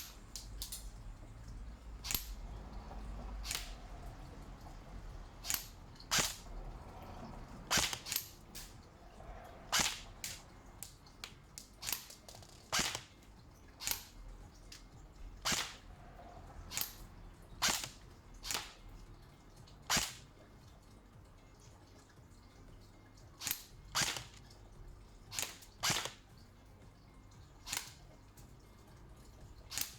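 Specna Arms M4 electric airsoft rifle firing single shots, about thirty sharp shots at uneven intervals of roughly a second, with a pause of a few seconds past the middle.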